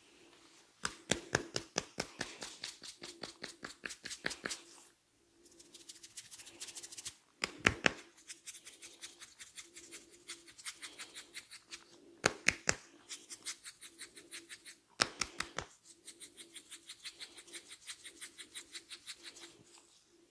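Head massage tapping: rapid runs of light hand taps on the head, about seven a second, broken three times by short bursts of harder slaps. A faint steady hum runs under them.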